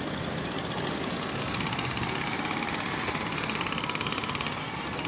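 A steady mechanical drone with a fast, even pulse over a dense background din. The pulse is strongest through the middle.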